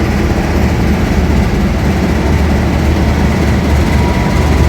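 GE diesel-electric locomotive running under power: a loud, steady, deep engine rumble.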